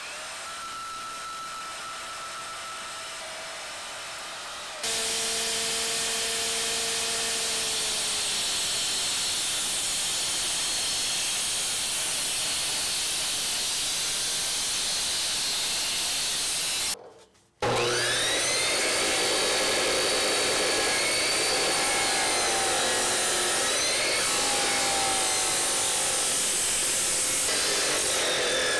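Power tools cutting steel bar stock in three takes. First a quieter cutting sound for about five seconds. Then a handheld Roto-Zip with a cut-off disc grinding through the metal, and after a brief break a Ridgid 14-inch abrasive chop saw whining up to speed and cutting steel with a steady high grinding.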